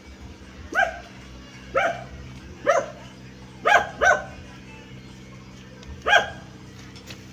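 A dog barking six times, about one bark a second with a quick double bark near the middle, over a steady hum.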